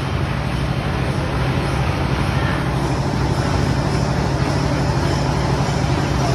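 Tractor-driven thresher running, a loud, steady mechanical drone with a low hum.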